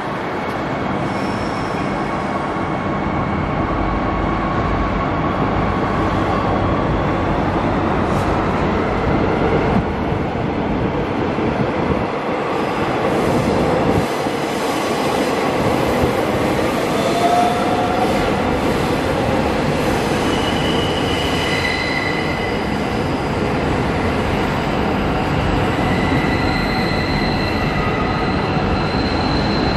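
Queensland Rail suburban electric train running along the tracks, a steady noise of wheels on rail. Through the second half, high wheel squeals come and go.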